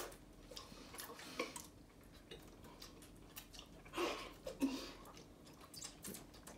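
Hushed room: scattered faint clicks and small handling noises, with brief soft murmurs about four seconds in.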